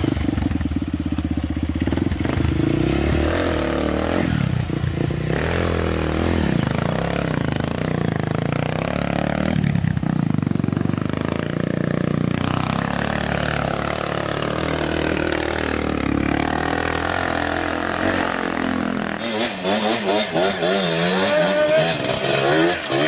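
Off-road trail motorcycle engines running and revving, their pitch rising and falling again and again.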